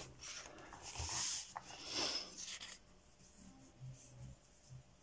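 Paperback coloring book pages being turned by hand: soft paper swishes and rubbing in the first two or three seconds, then quieter.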